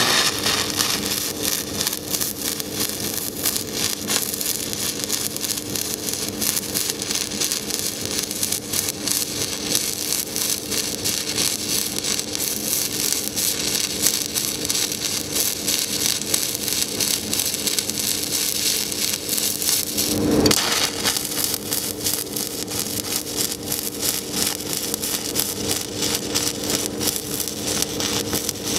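Pulsed stick-welding arc crackling steadily from a 3/32-inch 7018 electrode on an HTP Invertig 221 inverter, with the pulse set to 3 Hz, over a steady hum. About two-thirds of the way through, a brief louder break marks the start of a second bead at about 90 amps on 14-gauge steel.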